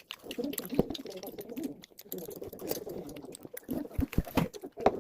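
People eating and murmuring at a table, with a few sharp clicks and taps scattered through it.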